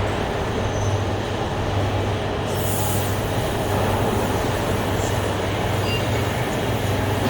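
Heavy machinery running steadily with a constant low hum, and a short hiss about two and a half seconds in.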